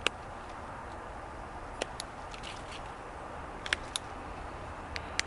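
LÖWE 8107 anvil pruners snipping alder twigs: a handful of sharp clicks as the blade closes onto the anvil, several in quick pairs.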